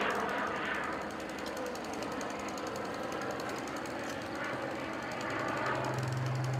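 Small engine of a hydraulic rescue-tool power unit running steadily with a rapid, even pulse, left running while the roof of the wrecked car lies cut open. A low steady hum joins in near the end.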